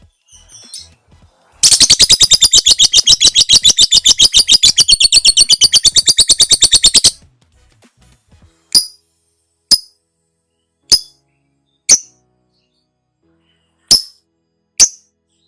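Lovebird giving its long 'ngekek' chatter, a very fast run of shrill notes at about ten a second that lasts some five seconds. It then breaks off into single sharp chirps about a second apart.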